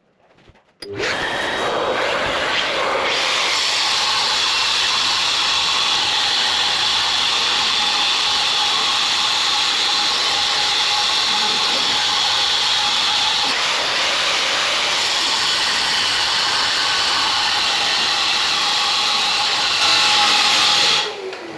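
Electric wall chaser (chasing machine) starts about a second in and runs steadily under load as its blades cut out the outline of a socket box in the wall, then shuts off near the end.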